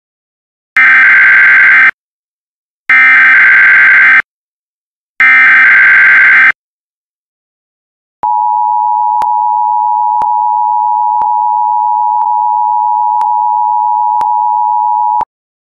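Emergency Alert System test signal: three loud bursts of SAME header data, a harsh digital screech of about a second each, then the EAS two-tone attention signal, a steady dual tone held for about seven seconds, with faint ticks about once a second, cutting off abruptly.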